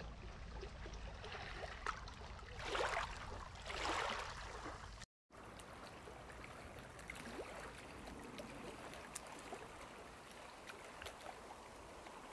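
Faint water lapping at the shore, with two louder washes of water around three and four seconds in. The sound drops out completely for a moment about five seconds in.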